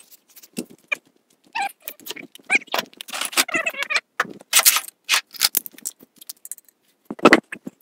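Irregular metallic clinks and rattles as a QuickJack lift's hydraulic hoses and fittings are handled, with a brief squeak about three seconds in.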